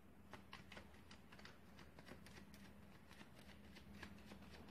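Faint, soft clicks of a deck of playing cards being shuffled by hand, several light ticks a second.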